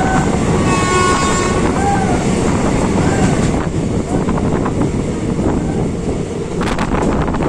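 Train running with a steady loud rumble, its horn sounding for about a second near the start. A run of sharp clicks comes near the end.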